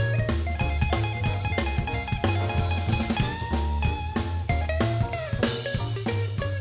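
Background music: guitar over a drum kit and bass, with a steady beat.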